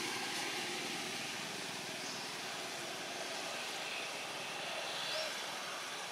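Steady outdoor background hiss at an even level, with a few faint, short high calls over it.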